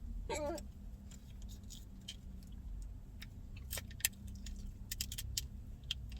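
A short, high, wavering vocal sound near the start, a girl's hiccup, then scattered small clicks and rattles over a low steady rumble.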